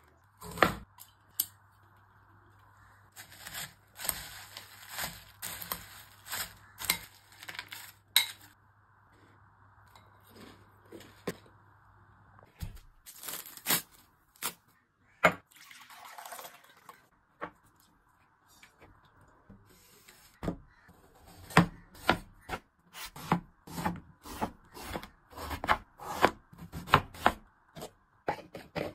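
Snack packets and snacks being handled: clusters of sharp clicks and crinkly crackles with short pauses between.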